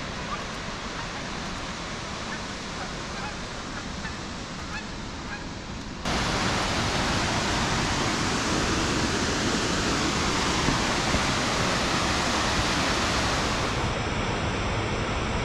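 Waterfall's steady rush of falling water, distant and fainter at first, then jumping suddenly to a much louder, closer rush about six seconds in.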